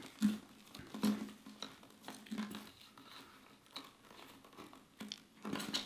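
Cable being handled and fed through the motorcycle's front frame and plastic fairing parts: soft rustling with scattered light clicks and taps, a little busier near the end.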